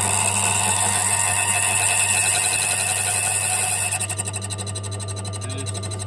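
Silca AY100 key cutting machine's cutter wheel grinding a notch into a key blank over the steady hum of its running motor. The cut is loud and high-pitched for about four seconds, then turns lighter and rapidly pulsing as the blank is eased along the cutter.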